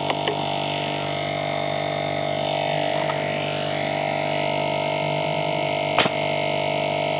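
Small air compressor motor running steadily as it builds tank pressure back up after repeated nailing. A pneumatic coil nailer fires once with a loud, sharp crack about six seconds in, after a couple of light clicks near the start.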